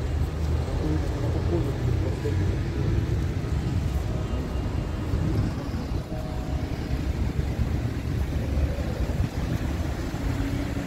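Road traffic on a city street: cars passing, with a steady low rumble of engines and tyres.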